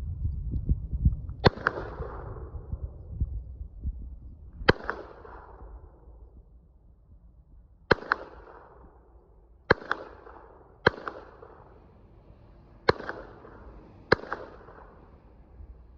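Masterpiece Arms MAC-10-style pistol firing seven single shots at uneven intervals of one to three seconds. Each crack is followed by a short echoing tail.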